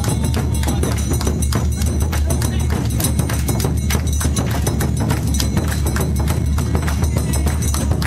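Live Awa odori dance music: taiko drums and a clanging kane hand gong beating a fast, driving rhythm, with crowd noise mixed in.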